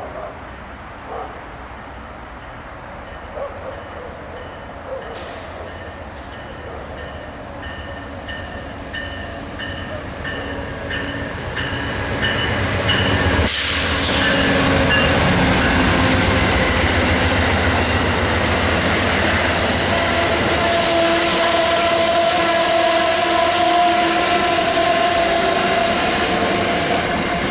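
Amtrak passenger train arriving. An evenly repeating bell ding comes first. About halfway through, the Genesis diesel locomotive rushes past with a sudden surge of noise, and the train's coaches keep rolling by loudly. High squealing tones from the wheels or brakes come in during the second half.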